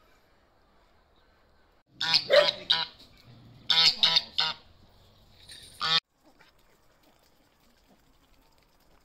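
Domestic white goose honking loudly. The honks start about two seconds in and come in two quick runs of several honks each, then one last honk about six seconds in.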